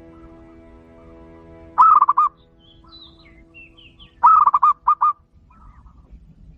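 Zebra dove (titiran) calling: two bursts of quick, high, rolling coos, one about two seconds in and a longer one just past four seconds. Faint small-bird chirps come between them, and a steady hum of tones fades out after about two seconds.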